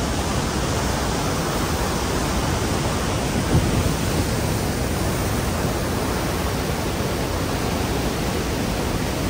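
The Rhine Falls' whitewater rushing with a steady, dense noise, with one brief louder surge about three and a half seconds in.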